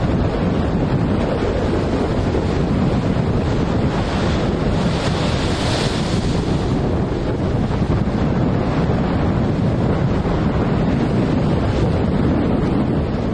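Storm-force wind buffeting the microphone over rough sea, with waves breaking and surging continuously; the rush of water grows louder for a couple of seconds about halfway through.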